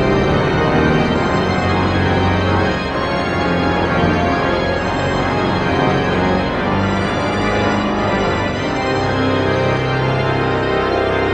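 Pipe organ playing held chords over a moving bass line, the notes changing every second or two without a break.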